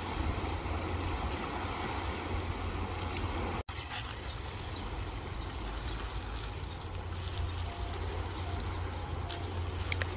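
Small, gentle sea waves lapping and splashing among shore rocks, with wind rumbling on the microphone. The sound drops out for an instant a few seconds in.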